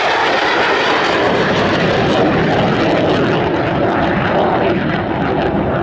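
F-16 fighter jet's engine noise, loud and steady as the jet flies past. The highest hiss thins out after about three seconds as it moves away.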